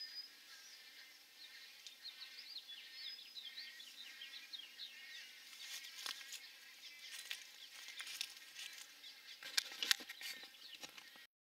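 Wood stork nestlings chattering in the rookery: many short, high chirps overlapping in a constant din. A few sharp clicks come near the end, and the sound cuts off suddenly.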